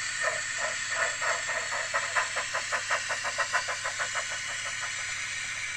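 Model steam locomotive's DCC sound decoder playing steam chuffs through its speaker. The chuffs quicken steadily as the loco picks up speed, then stop about four seconds in, leaving a steady hiss of steam.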